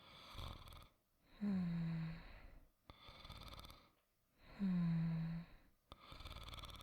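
A person snoring softly in a slow, even rhythm, about one breath every three seconds. There are two buzzing snores on the in-breath, a little over a second in and again about three seconds later, each falling slightly in pitch, and each is followed by a quieter, fluttering out-breath.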